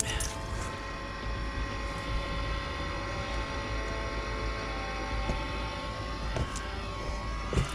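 A Chinese 5 kW diesel air heater running its start-up cycle. Its blower fan whirs steadily with a whine of several tones. Its fuel pump ticks faintly, about once a second, near the end, still drawing fuel up a line with air in it.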